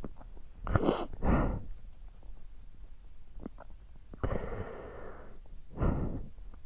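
A man sniffling and breathing out shakily, close to tears: two sharp sniffs about a second in, then a long sighing breath and another sniff near the end.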